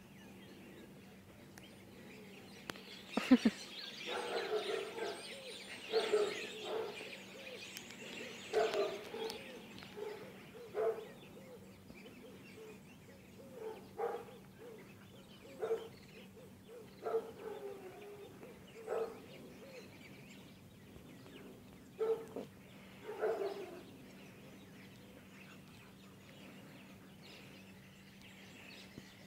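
An animal making short calls, about a dozen over some twenty seconds, the loudest a few seconds in.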